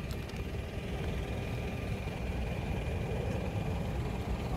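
Steady low rumble of road traffic, with no distinct events and a faint, thin steady high tone above it.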